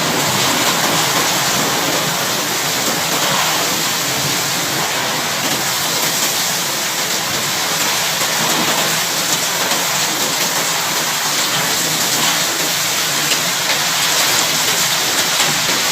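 Heavy rain pouring down in a windstorm, a dense steady hiss of rain on surfaces.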